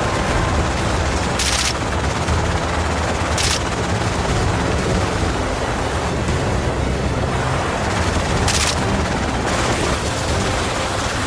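Three sharp gunshots, about one and a half, three and a half and eight and a half seconds in, over a steady low rumble.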